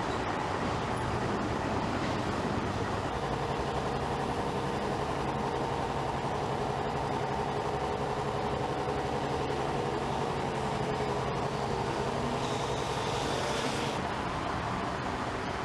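Heavy diesel engine running steadily under load, with a held hum over a noisy traffic bed; it is the crane engine working the lift. A brief hiss comes in near the end.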